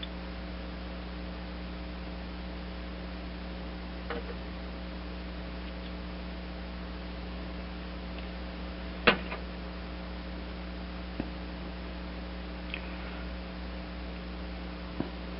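Steady electrical mains hum with a few light clicks and one sharper click about nine seconds in: small metal carburetor parts, such as the float and its hinge pin, being handled and fitted.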